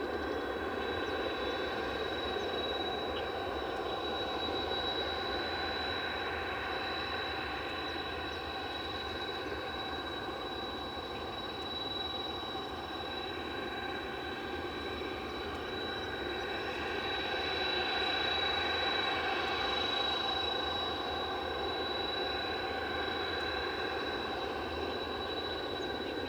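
Jet aircraft engine running steadily with a constant high-pitched whine, swelling a little about two-thirds of the way through.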